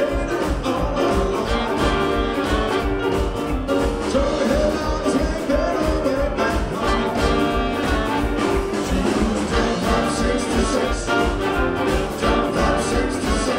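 Live jazz and blues band playing an instrumental passage: horns, electric guitar and Hammond organ over a plucked upright bass keeping a steady beat.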